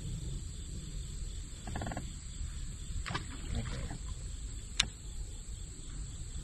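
Clicks and rattles of a baitcasting rod and reel being handled, with a short run of rapid ticks near two seconds and one sharp click about five seconds in, over a steady low rumble.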